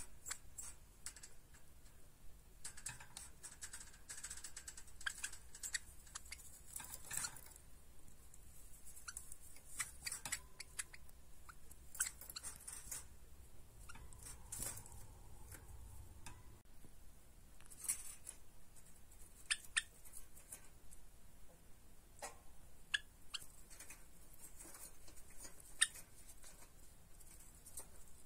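Java sparrows moving about a wire cage: faint, scattered clicks, taps and scratches of feet and beaks on perches and bars, irregular throughout.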